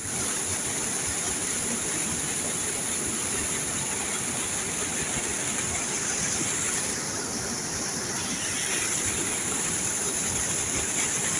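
Brown floodwater pouring over the lip of a small overflowing dam spillway and splashing into foaming water below: a steady rushing of falling water.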